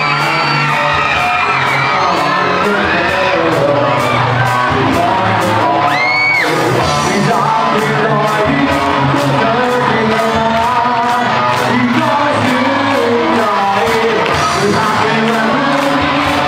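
Live rock band playing: a male singer over electric guitar, bass guitar and a drum kit, the cymbals keeping a steady beat. About six seconds in, a short high rising whoop cuts through.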